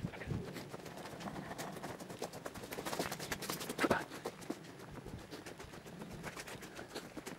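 Brisk footsteps scuffing along a dirt woodland path, an uneven patter with rustling, and one louder thud about four seconds in.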